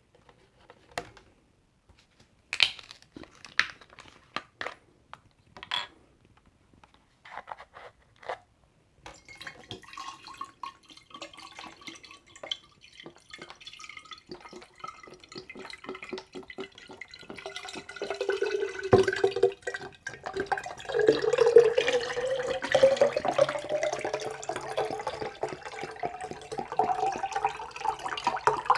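A few sharp clicks and taps, then about nine seconds in coconut water starts glugging steadily as it is chugged. It grows louder partway through, and near the end its tone rises steadily.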